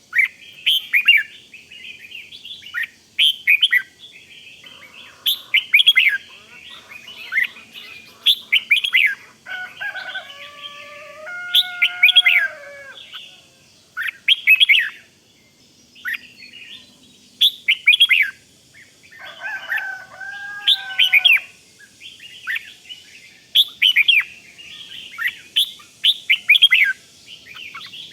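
Red-whiskered bulbuls singing: short, quick, bubbling phrases repeated every second or so, with a lower, drawn-out, bending call twice among them.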